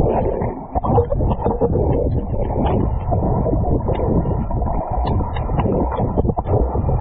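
Muffled sloshing and splashing of sea water around a GoPro as a swimmer in mask and snorkel moves through the water, with dense irregular surges throughout.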